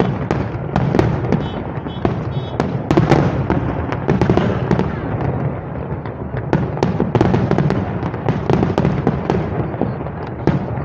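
Aerial fireworks display: a dense, continuous barrage of bangs and crackles from shells bursting overhead, several bangs a second.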